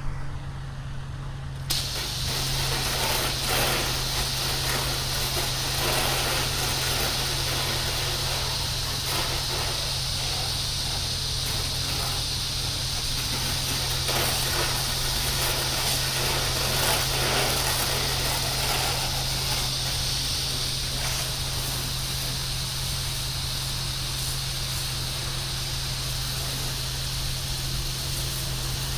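Pressure-washing rig: its engine runs steadily, and about two seconds in a water jet starts spraying with a loud, even hiss that holds steady.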